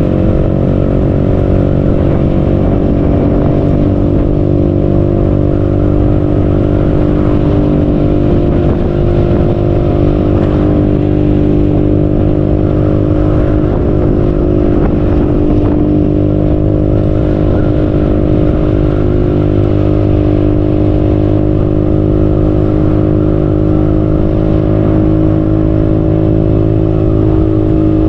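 Motor scooter engine running at a steady, nearly unchanging pitch while riding, with wind and road noise underneath.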